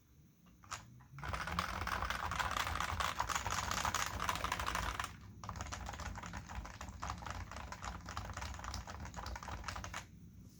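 Fast typing on a Cooler Master Novatouch keyboard with Topre switches: a dense run of keystrokes starting about a second in, a short pause around the middle, then more typing, a little quieter, that stops near the end.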